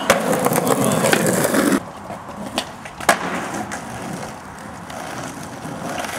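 Skateboard wheels rolling on rough asphalt, with sharp clacks of the board striking the ground. The rolling noise stops suddenly about two seconds in, two clacks follow a half second apart, and the rolling builds up again toward the end.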